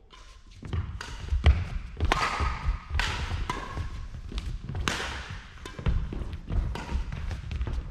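Badminton rally: a run of sharp racket hits on the shuttlecock, about one every half second to second, over players' footsteps thudding on a wooden sports-hall floor, with the hits ringing on in the large hall.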